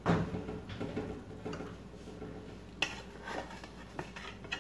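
Metal spoon knocking and scraping against a metal pot while chicken pieces are scooped out: a few separate clinks, with a loud knock at the very start and a sharp one nearly three seconds in.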